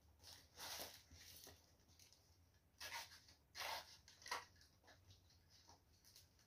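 Faint short rustles and snips, about five in a few seconds, as large green leaves are handled and trimmed with pruning shears.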